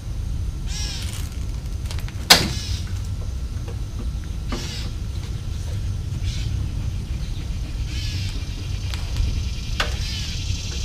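Short clicks, squeaks and scrapes of metal and plastic as hands work at a Briggs & Stratton lawn mower engine's carburetor and throttle linkage, with one sharp click about two seconds in, over a steady low hum.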